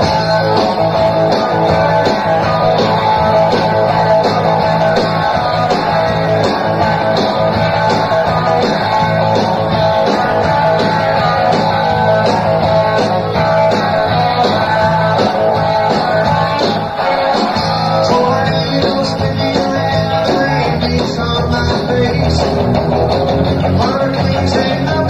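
Rockabilly band recording playing: electric guitar and bass over a steady drum beat.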